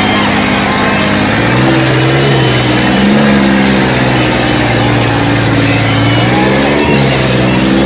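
Diesel tractor engines labouring under full load as a John Deere and an Eicher tractor pull against each other in a tug of war. The engine speed holds steady, then from about a second and a half in rises and sags several times under the strain.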